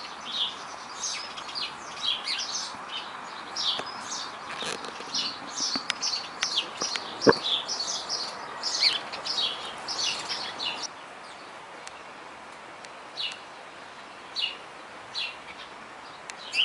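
Birds chirping: many short, high chirps come thick and fast, then thin out to a few scattered calls for the last several seconds. A single sharp click about seven seconds in is the loudest sound.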